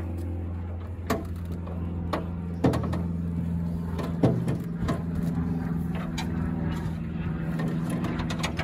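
A steady low motor hum that shifts pitch a couple of times, with three sharp metal clunks about a second and a half apart as the mobility scooter's front is worked into place on the trailer's locating bolt.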